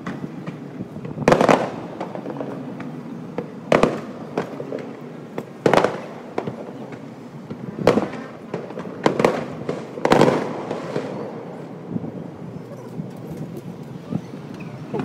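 Aerial fireworks shells bursting: about six booms, one every one to two seconds, each echoing, with smaller pops and crackling in between. The bangs thin out to scattered crackle in the last few seconds.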